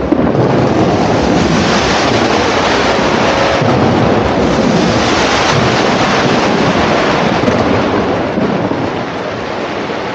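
Fireworks going off in a dense, continuous barrage of bursts and crackling that merge into a steady rumble, easing off near the end.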